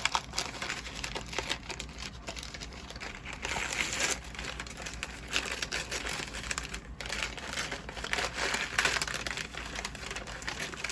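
Gift wrapping paper crinkling and tearing in uneven surges as a present is unwrapped by hand.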